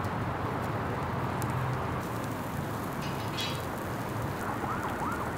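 Fish grilling over glowing charcoal: a steady sizzle and crackle of the embers over a low hum.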